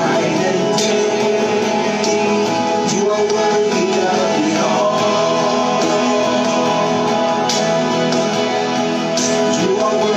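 Live church worship band music, with guitar prominent under sustained chords.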